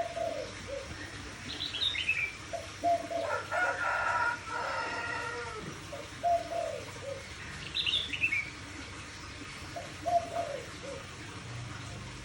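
A dove cooing in short repeated phrases of low, slightly falling notes. A smaller bird chirps twice with high, falling notes, and there is a louder, longer call about three to five seconds in.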